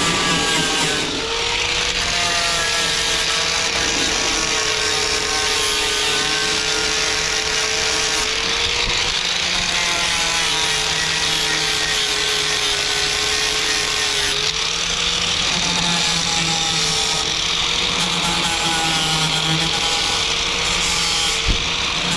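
Angle grinder running against metal, grinding down corners: a steady whine with a hiss that sags slightly in pitch and recovers as the disc bites.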